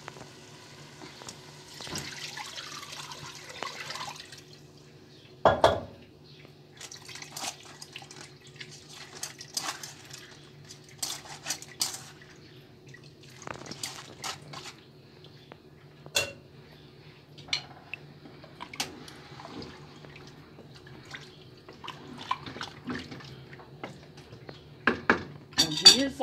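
Soaked tamarind strained into a pot of fish stew through a metal mesh strainer: liquid pours for about two seconds near the start, then the pulp is squeezed and worked by hand. A metal knock sounds once, a little before six seconds in, and scattered clinks and scrapes of the strainer against the pot follow.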